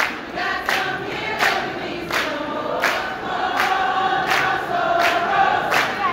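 A large group of women singing together in unison, with sharp hand claps keeping an even beat about every 0.7 seconds.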